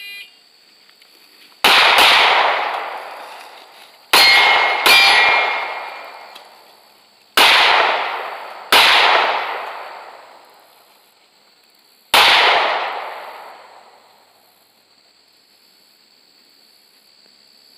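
Six handgun shots, each followed by a long echo: one, a quick pair half a second apart, two more about a second and a half apart, then a last shot.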